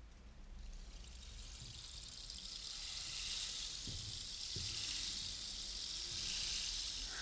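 Rainstick turned upright, its filling trickling down inside as a steady rushing hiss that fades in and builds over the first few seconds. Two soft low knocks about four seconds in.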